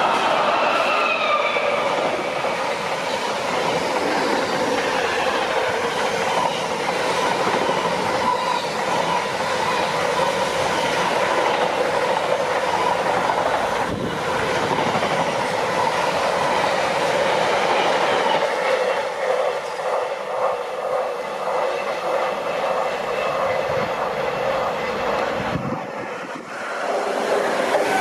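A train running past on the rails, with a steady whine from the wheels and a fast rhythmic clatter over the rail joints in the second half.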